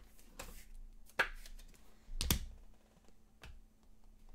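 A clear plastic trading-card holder being handled: a few separate sharp clicks and taps, the loudest about a second and two seconds in.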